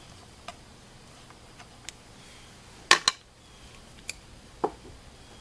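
Scattered light clicks and metal taps from a hand tool and small chainsaw parts as a T25 screw is worked out during carburetor disassembly. The loudest is a sharp double clack about three seconds in.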